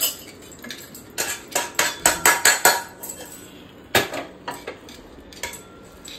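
Metal kitchen utensils and pots being handled, clinking and clattering: a quick run of clinks about a second in, then a louder clank about four seconds in and a few lighter knocks.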